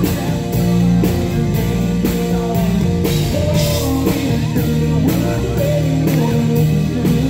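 Live country band playing: strummed acoustic guitar, electric bass and a drum kit keeping a steady beat, with a sung lead vocal.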